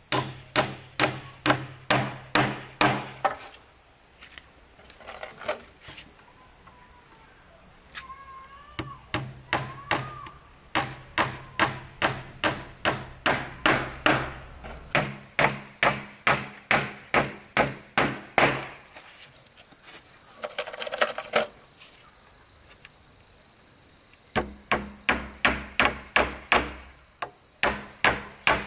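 Claw hammer striking a wooden bed-frame rail in runs of quick, even blows, about three a second, with pauses between the runs.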